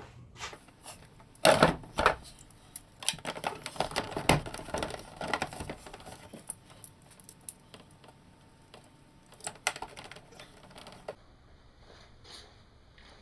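Irregular clattering and knocking of gear being moved about and cleared out of a boat, with louder knocks about one and a half, two and four seconds in; it stops about eleven seconds in.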